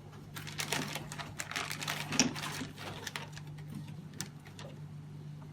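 A quick run of small clicks and rattles from parts being handled, busiest in the first three seconds with one sharper click about two seconds in, over a steady low hum.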